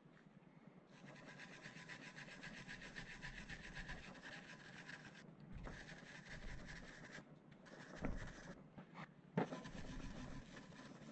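Hand wire brush scrubbing a brake caliper carrier clamped in a vise, cleaning the dirt from where the brake pads sit. It goes in runs of quick scrubbing strokes, the longest lasting about four seconds, with a couple of sharper knocks in the second half.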